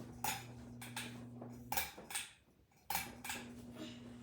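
Hampton Bay Weddington ceiling fan running on medium speed, its motor giving a steady low electrical hum, with several sharp clicks over it. The hum drops out for about a second near the middle, then comes back.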